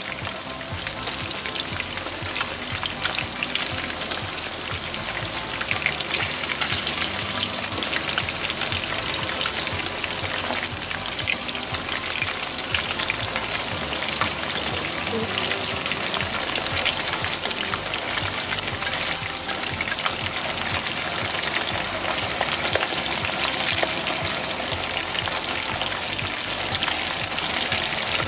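Chicken karaage pieces deep-frying in a pan of hot oil, a steady sizzle with fine crackles.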